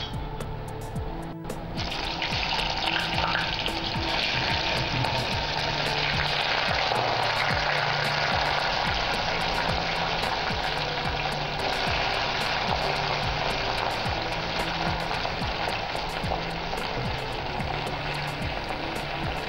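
Cubed green plantain frying in hot oil with cumin seeds in a steel kadai: a steady sizzle, which gets louder about two seconds in.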